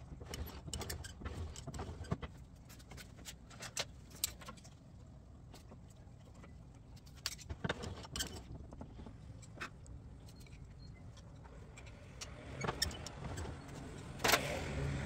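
Scattered light metallic clicks and clinks of hand tools working on the surface grinder's metal parts, over a low steady hum. A few louder knocks come near the end.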